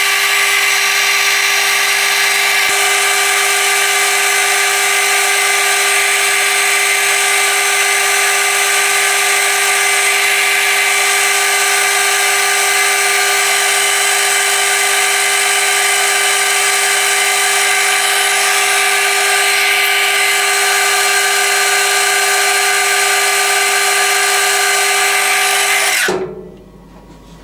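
Metal lathe running steadily, its motor and gearing whining with many steady tones, while a boring bar cuts the inside of a small metal cup for a metho burner. The sound cuts off suddenly near the end.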